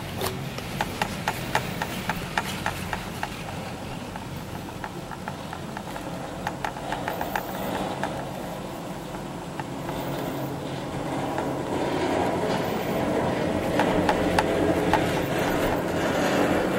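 Chairlift haul rope running over a tower's sheave wheels: a rapid run of clacks in the first few seconds as the chair passes the pylon, a few more a little later, over a steady rumble of the moving cable that grows louder near the end.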